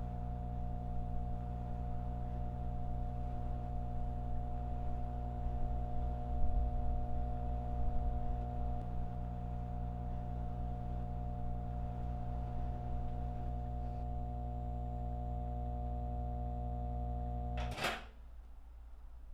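Microwave oven running with a steady hum, then cut off by a sharp click near the end.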